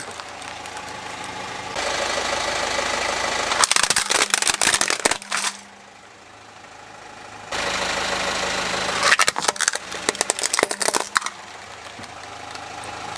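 Car engine idling with a steady hum, broken twice by clusters of sharp cracking and crunching, about four seconds in and again about nine seconds in, as a tyre rolls over and crushes plastic toy vehicles.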